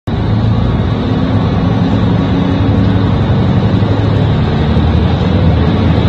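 JR Central KiHa 75 diesel railcar running, heard inside the passenger cabin: a steady low engine drone mixed with the rumble of the wheels on the track.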